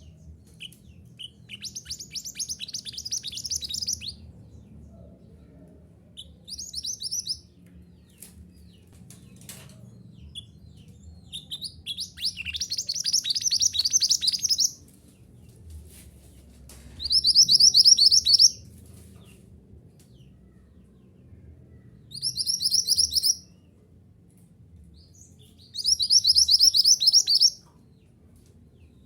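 Mantenan gunung (a mountain minivet) singing: six bursts of rapid, high, sharp chirps, each one to three seconds long, with pauses between them.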